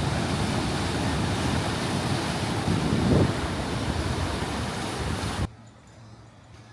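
Ocean surf washing on a beach, with wind buffeting the microphone and a brief louder surge about three seconds in. It cuts off abruptly about five and a half seconds in, leaving a faint low hum.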